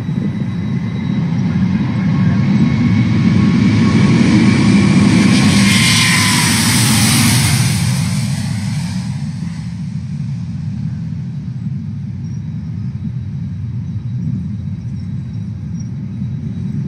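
Boeing 747's four jet engines at takeoff thrust as the jet rolls past and lifts off. A deep rumble swells, an engine whine falls in pitch as it goes by about six to eight seconds in, and the sound then eases as the jet climbs away.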